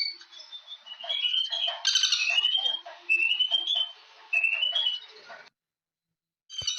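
Bird calls: a series of short, rising chirps repeated every second or so. About two seconds in there is a flurry of clicks. Near the end the sound drops to about a second of dead silence, then starts again with a sharp click.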